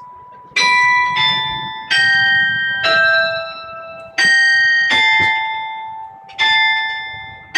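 Carillon bells struck one at a time in a slow tune: about seven notes of different pitch, each ringing on and fading until the next is struck.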